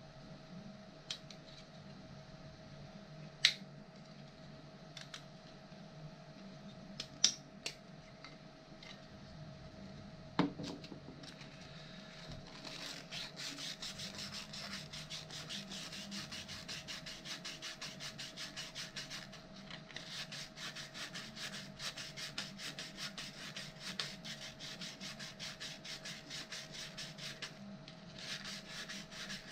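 A few sharp clicks, then, a little before halfway, fast, even back-and-forth rubbing strokes of a hand abrasive smoothing a 3D-printed plastic part, pausing briefly twice. A faint steady hum runs underneath.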